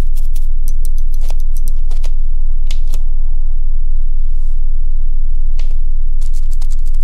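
A pen scratching on a wall in quick, sharp strokes, in clusters during the first three seconds and again near the end, over a loud, steady low drone.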